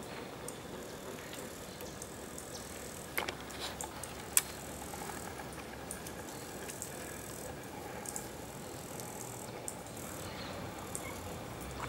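Quiet outdoor background hiss with a faint steady high tone, broken by a few sharp snaps between about three and four and a half seconds in, the loudest near four and a half seconds.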